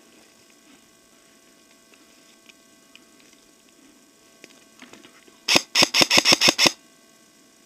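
Airsoft gun firing a quick string of about eight shots in a little over a second, after several seconds of faint rustling and small clicks.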